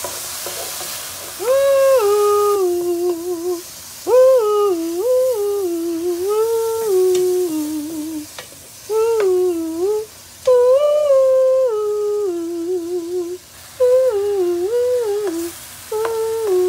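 A woman humming a tune in short phrases of held, stepping notes, over the sizzle of mushrooms and peppers frying in a pan as a spatula stirs them.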